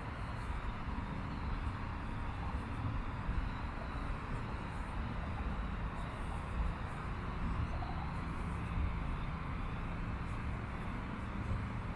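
Outdoor city-park ambience heard while walking a paved path: a steady hum of distant city traffic with a low rumble underneath, and faint, irregular footstep ticks on the concrete.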